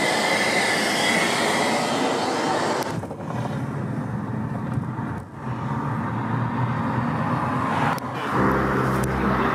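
A cordless vacuum cleaner running with a steady whine for the first three seconds, then a sudden change to the lower noise of a vehicle driving on the road. Near the end a low steady hum sets in.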